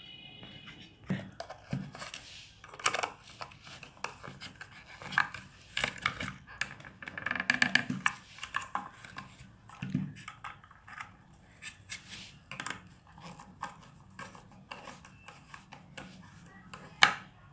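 Irregular small clicks, taps and brief scrapes of hands and a tool working on an electric bike horn as it is reassembled and its four nuts are tightened.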